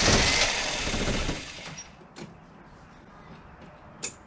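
Starter motor cranking the Mercedes-Benz W123's carburetted petrol engine, which does not catch; the cranking stops about a second and a half in, then come a few sharp clicks. The engine fails to start after its carburettor was cleaned and refitted, on a battery the owner says is running low.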